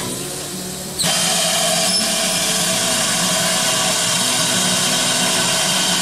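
Steam hissing steadily from GWR 2-8-0 tank locomotive No. 4270, starting suddenly about a second in, over a low steady hum from the engine.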